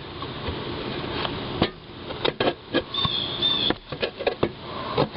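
Metal hand tools clicking and knocking on a lawn mower engine, with a brief high squeak about three seconds in.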